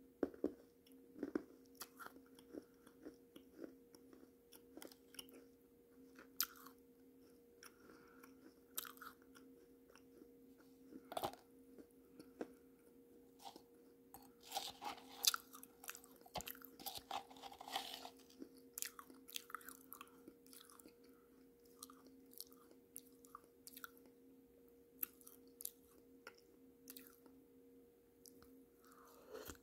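Close-up chewing and crunching of baked clay pot pieces and clay paste, with short sharp crunches and clicks scattered throughout and a denser burst of crunching about halfway through. A faint steady electrical hum runs underneath.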